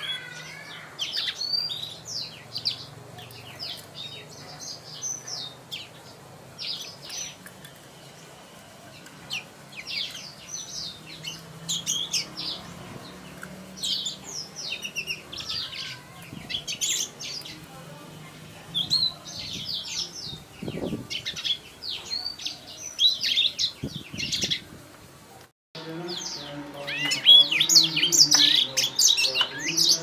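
Young black-throated canary (blackthroat) singing: short bursts of high, fast twittering notes, phrase after phrase with brief pauses. After a short break near the end, the song comes louder and denser.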